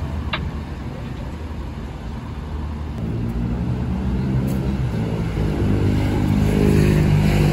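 Road traffic on a wet street: the engine hum of passing cars, swelling toward the end as a vehicle draws close with tyre hiss on the wet road.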